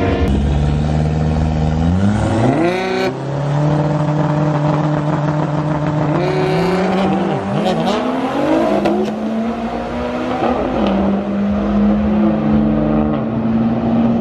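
Drag car's engine accelerating hard down the strip. The pitch climbs and drops back at each gear shift, several times, then settles into a steady drone as the car pulls away.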